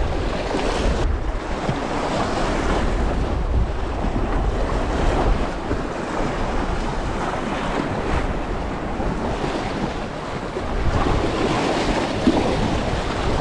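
Choppy sea surf washing and breaking against rocks, with strong wind buffeting the microphone as a steady low rumble.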